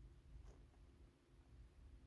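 Near silence: room tone with a low rumble and one faint, very short high sound about half a second in.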